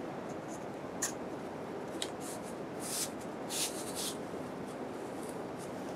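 Cardboard being slid into a canvas bag: several short, dry rustles and scrapes of board against fabric in the first four seconds, over a steady background hiss.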